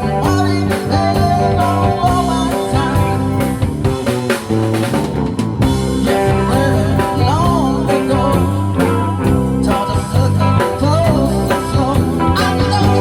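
Rock music with guitar, bass and drums over a steady beat.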